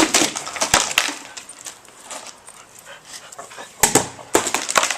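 A dog worrying at a toy or object, with sharp clicks and crackling scrapes in two flurries, one at the start and one near the end.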